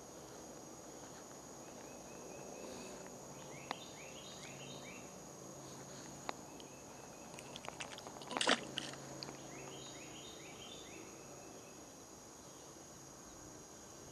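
Outdoor ambience: a steady high-pitched insect drone, with a bird calling in quick runs of short falling notes several times. A few sharp clicks and one louder brief clatter about eight and a half seconds in.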